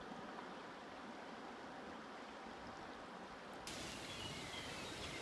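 Faint, steady rushing of the John Day River flowing past its grassy bank. About three-quarters of the way through it cuts to a hissier open-air background with a few faint chirps.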